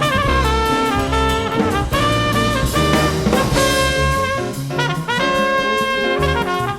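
Live small-group jazz: trumpet carrying the melody over drum kit, bass and piano.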